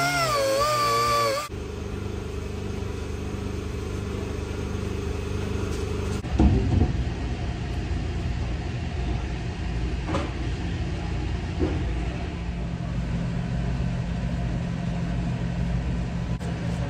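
Background music for the first second and a half, then a steady low machine rumble, with a short clatter about six seconds in and a few light clicks.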